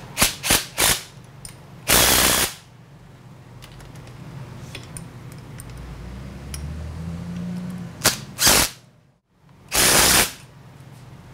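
Cordless impact driver hammering bolts tight on bearing mounts: three quick bursts at the start, a longer burst about two seconds in, then two short bursts and a longer one near the end, with faint clicking in between.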